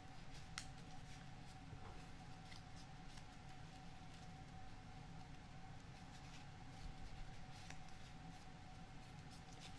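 Faint rustling and small clicks of folded paper origami units being handled and pressed together, with one sharper click about half a second in, over a steady faint hum.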